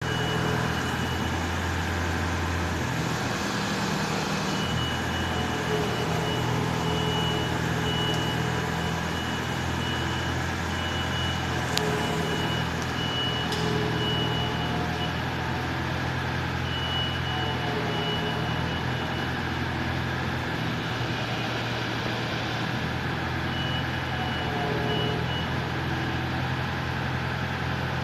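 A steady low engine-like hum with a high electronic beeping tone that starts and stops in runs of short beeps.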